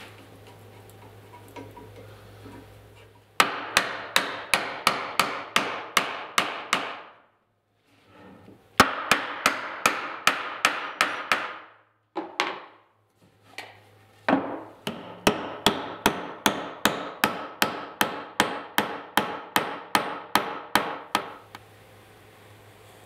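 A small steel-headed hammer striking a wooden rail in steady runs of quick, sharp blows, about three a second, in four bursts with short pauses between them.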